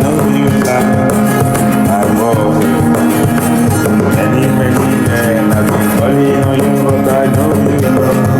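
Worship music: a medley played by instruments with singing voices, carrying on steadily.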